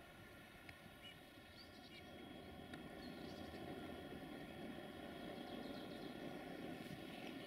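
Faint low rumble of a distant diesel train approaching, growing slowly louder from about two seconds in, with a few small bird chirps.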